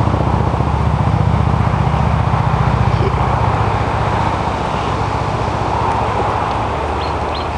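An engine running steadily at idle, a low, even hum with a fast flutter.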